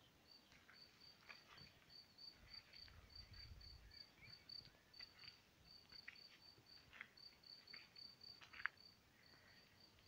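Near silence, with an insect, a cricket, chirping faintly on one high note about four times a second, and a few soft rustles.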